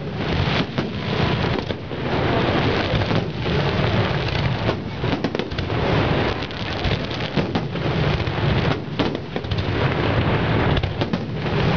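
Aerial fireworks display: a dense, continuous barrage of shell bursts and crackling, with many closely spaced bangs throughout.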